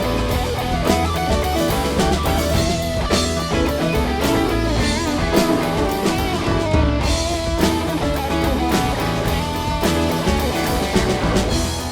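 Live jam-band rock played by a full band: lead guitar over bass, drum kit and keyboard in an instrumental passage with no singing.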